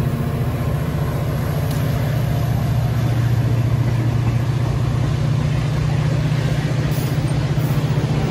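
Metra EMD F40PH diesel locomotive working hard as it pulls a commuter train away: a loud, steady low engine drone, with bilevel passenger cars rolling past close by.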